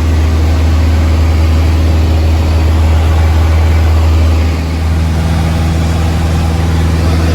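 Cessna 152's four-cylinder Lycoming engine idling, heard from inside the cockpit as a loud steady drone. The engine note shifts slightly a little past halfway through.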